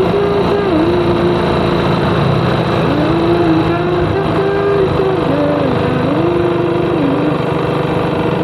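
Small scooter engine running on the move, with steady wind and road rumble on the microphone. A tone that steps up and down in pitch sits over it throughout.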